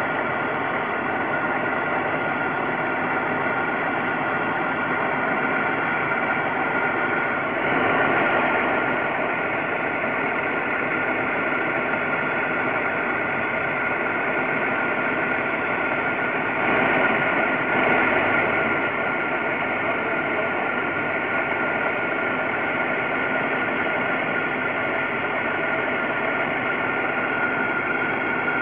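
A freshly rebuilt supercharged 3800 V6 with a hotter cam, ported heads and ported blower idling steadily, briefly a little louder twice, about 8 and 17 seconds in.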